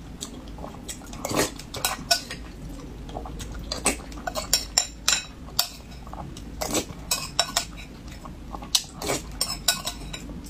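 Metal spoon clinking and scraping against a ceramic bowl while scooping rice soaked in stew, as irregular sharp clicks.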